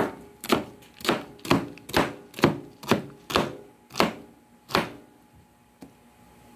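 Knife chopping winged beans on a plastic cutting board: about ten even cuts, roughly two a second, stopping about five seconds in.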